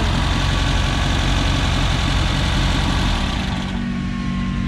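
Dune buggy engine running steadily, then dropping to a quieter, steadier idle about three and a half seconds in.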